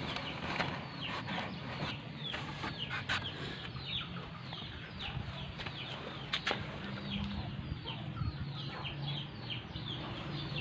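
Birds calling steadily in many short, falling chirps, with a few sharp clicks in between.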